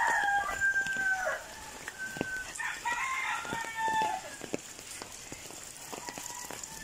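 Roosters crowing: one long crow ends about a second and a half in, and a second crow runs from about two and a half to four seconds in.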